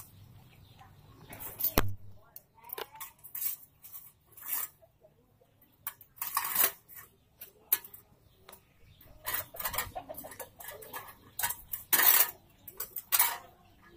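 Irregular metallic clinks, scrapes and knocks from hands working at the base of a loose satellite-dish pole, with sharp knocks about two seconds in and near the end.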